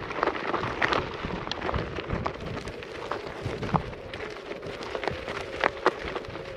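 Onewheel electric board's tire rolling over loose gravel and dirt: a continuous crunching crackle broken by sharp clicks of pebbles, with a faint steady hum underneath.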